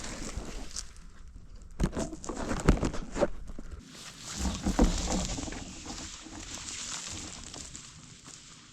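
Mountain bike being ridden over rough trail: irregular knocks and rattles from the bike, loudest around two and five seconds in, with tyre and wind hiss that fades near the end.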